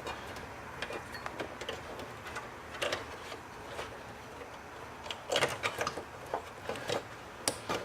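Power supply cable connectors being worked loose and pulled off a hard drive inside a desktop PC case: a string of sharp plastic clicks and knocks, with small clusters of them about three seconds in and again near the end.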